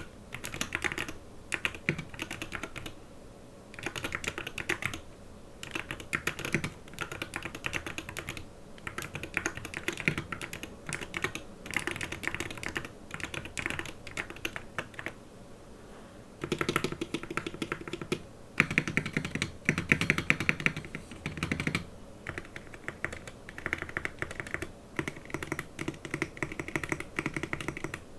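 Yuki Aim Polar 65 mechanical keyboard being typed on, rapid key clacks in bursts of a few seconds with short pauses between.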